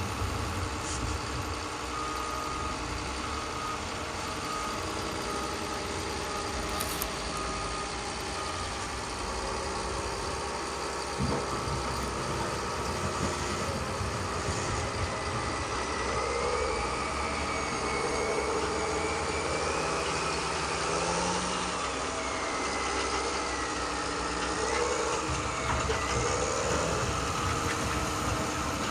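Remote-controlled hydraulic model wheel loader running with a steady engine drone as it reverses, towing a stuck loader on a chain. A reversing beeper sounds in short repeated beeps from about two to nine seconds in.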